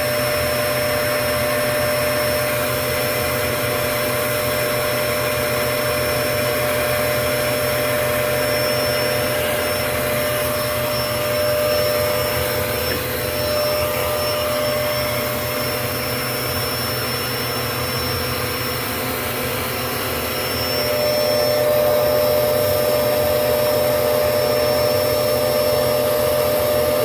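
Vacuum cleaner running steadily, a constant whine over rushing air. It grows a little louder about two-thirds of the way through.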